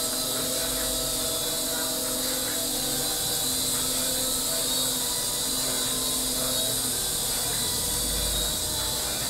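Micro RC helicopter's small electric motors and rotors whirring steadily in flight, with a faint hum that drops in and out.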